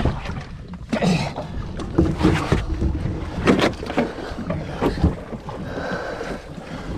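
A large alligator being hauled by rope over the gunwale and onto the deck of a small boat: irregular thumps, knocks and scraping against the hull.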